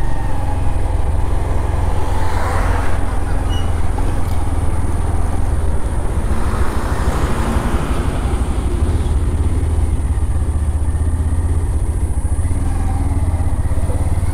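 Motorcycle riding along a road: the engine and the rush of travel make a heavy, steady low rumble, with two louder swells of noise about two and six seconds in.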